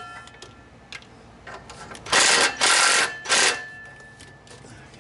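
Hand work on the metal joint of a car's exhaust pipe and catalytic converter: two short, noisy bursts a little after two seconds in, with faint metallic ringing between them.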